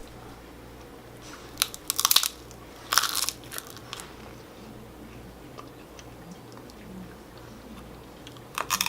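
Biting into and crunching a small wafer cone of DIY strawberry soft-cream candy, in short crisp clusters about two and three seconds in and again near the end.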